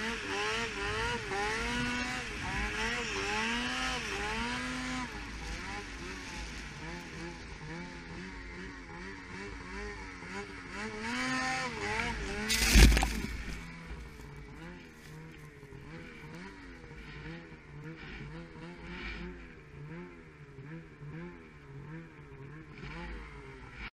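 Snowmobile engine revving up and down over and over as the sled rides through deep powder snow, with one loud burst of noise about halfway through, after which the engine runs more quietly.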